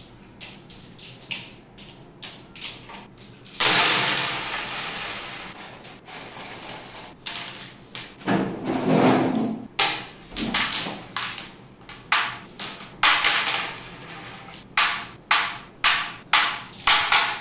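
Carrom striker and wooden carrom men clacking on a Precise Classic carrom board as it is played: small clicks at first, then a hard shot about three and a half seconds in sends the pieces sliding and knocking across the board. Single shots follow, and near the end comes a quick run of sharp clacks about twice a second.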